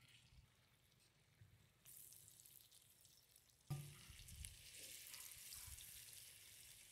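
Faint sizzling of cornstarch-dusted salmon pieces pan-frying in hot oil in a nonstick wok, a steady hiss that starts suddenly about halfway through, with a soft knock or two.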